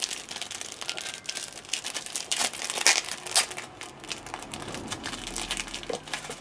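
Clear plastic bag crinkling and rustling as hands open and handle it: an uneven run of sharp crackles, thickest about halfway through.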